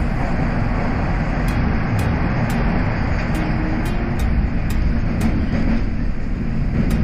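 Toronto subway train running through a tunnel, heard from inside the car: a steady rumble and rush of wheels on rails, with faint ticks about twice a second.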